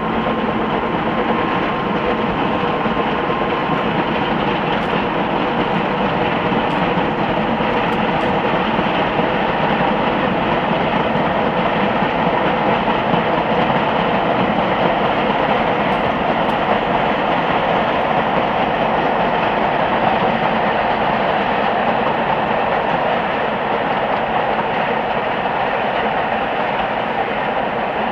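Narrow-gauge steam train working along the line, heard from a distance as a steady rushing mix of locomotive exhaust and rolling carriages.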